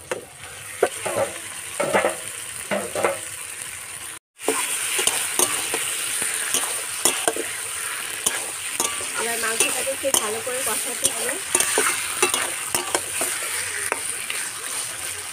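Marinated duck pieces sizzling as they fry in a hot metal wok over a wood fire, with a metal spoon scraping and clicking against the pan as the meat is stirred. The sound drops out briefly about four seconds in, then carries on as a steady sizzle with frequent scrapes.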